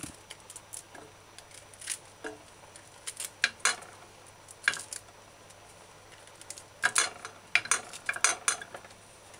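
Light clicks and taps of a knife and cauliflower florets against a stainless steel pan as florets are cut from the head and dropped in. The taps are scattered, with a short run a little after three seconds in and a busier run about seven seconds in.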